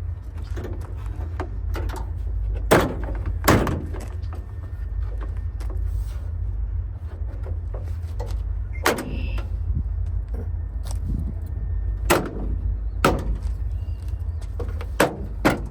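Sharp clicks and knocks as a piece of a Chevy Express van's side door lock assembly is worked back into place in the door, heard over a steady low rumble.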